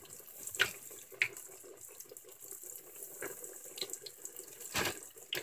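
Breaded pieces of fish deep-frying in a large pot of hot oil, just dropped in: a steady bubbling sizzle with scattered crackling pops.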